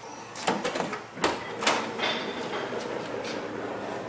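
Power sliding door of a 2009 Honda Odyssey minivan being opened: several sharp clicks and knocks in the first two seconds as the latch releases, then a steady running sound as the door slides back along its track.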